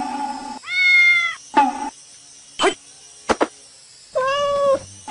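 Baby macaque calling out twice in drawn-out, even-pitched cries, one about a second in and another near the end, with a few faint clicks between. Background music stops in the first half-second.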